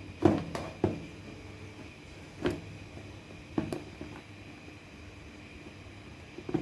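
Handling noises as an oil analyser is taken out and set down: a few short knocks and clicks, bunched in the first second with a couple more later, over a faint steady hum.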